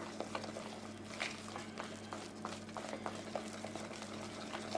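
Wire whisk beating a thin batter in a plastic bowl: soft, irregular wet clicks and slaps of the whisk through the batter, over a faint steady hum.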